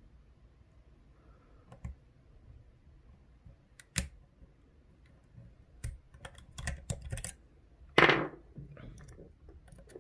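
Small metal clicks and taps of a lock pick and tension tool working the pins of an Assa 600 euro cylinder as it is single-pin picked: a few separate sharp clicks, a run of quick clicks past the middle, and the loudest clack near the end.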